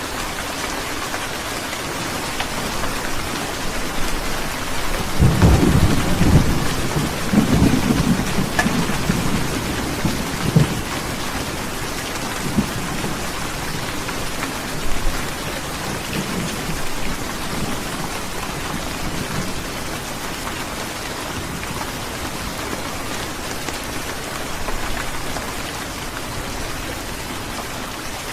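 Heavy rain falling steadily, with a low rolling rumble of thunder that swells about five seconds in and dies away by about eleven seconds, and fainter rumbles after.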